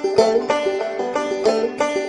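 Background music: a quickly picked plucked-string tune, several sharp notes a second.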